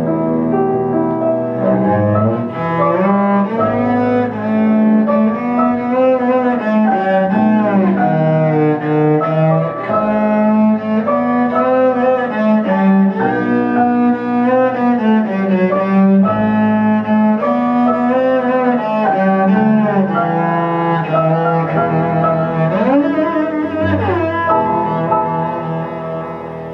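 Cello and piano playing a classical cello sonata, the cello carrying the line with a couple of sliding notes. The music fades out near the end.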